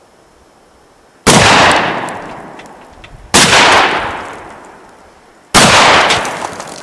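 Three shotgun shots about two seconds apart, each trailing off in a long echo. The loads fired are birdshot, buckshot and a slug.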